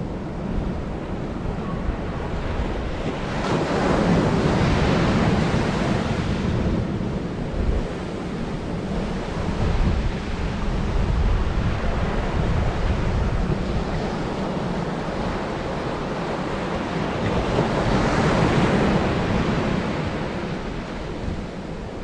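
Surf breaking and washing up a sandy beach, surging louder twice: a few seconds in and again toward the end. Wind buffets the microphone underneath as a steady low rumble.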